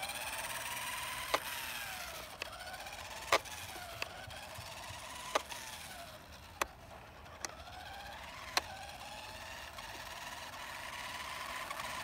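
Electric motor of a 1994 Radio Shack Rock Crusher RC truck whining as it drives, the pitch rising and falling as it speeds up and slows, with sharp clicks every second or so. The whine fades in the middle and grows louder again near the end.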